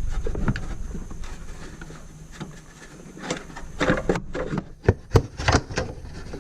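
Scattered clicks and knocks of hands working a rubber coolant hose back onto a plastic coolant overflow reservoir, with a few sharper knocks near the end.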